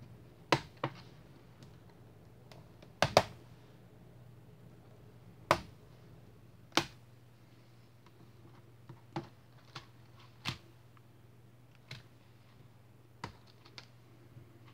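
Plastic retaining clips of an Acer TravelMate P453 laptop keyboard snapping free as it is pried out: six sharp clicks in the first seven seconds, then lighter, scattered clicks and taps as the keyboard comes loose.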